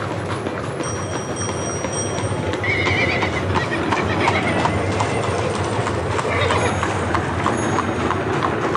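Street full of horse-drawn carriages: many horses' hooves clip-clopping over each other at an uneven rhythm, with a horse whinnying briefly about three seconds in and again later.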